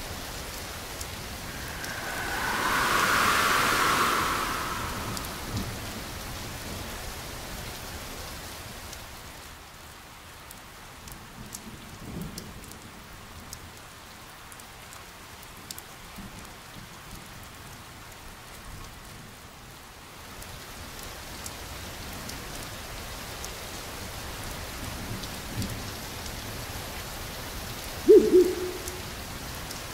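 Steady rain falling. About two seconds in, a whooshing swell rises and fades over a few seconds. Near the end come two sharp hits in quick succession, the loudest sounds here.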